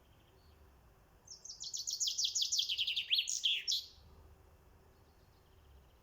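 A songbird sings one fast song of about two and a half seconds: a quick run of short, down-slurred, high notes that ends in a brighter flourish. Faint distant chirps are heard around it.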